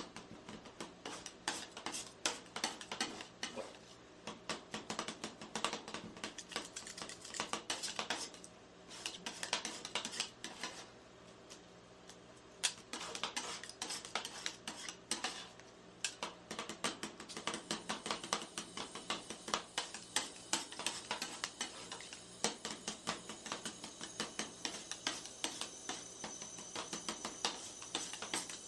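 Metal spatulas rapidly chopping and tapping on the steel cold plate of a rolled-ice-cream counter, mixing Nutella and banana into the freezing cream, in quick irregular strokes with two short pauses.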